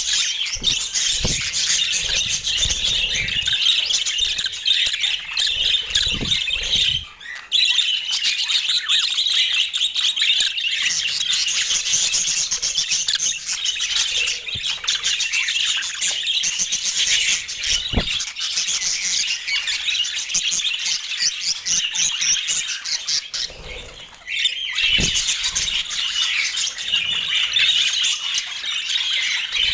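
A flock of budgerigars chattering and warbling continuously with squawks mixed in, pausing briefly about a quarter of the way through and again near the end.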